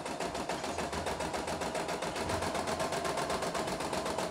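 CNY E960 computerized embroidery machine stitching a design: a rapid, even run of needle strokes over a steady motor tone.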